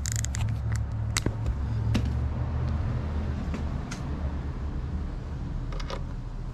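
Scattered light metallic clicks and taps as a socket on an extension is fitted to a 2JZ-GTE timing belt tensioner bracket bolt and turned by hand, over a low steady background hum.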